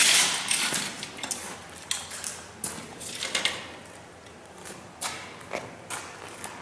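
Footsteps over debris with light metallic clattering and scraping, the loudest a sudden scrape right at the start.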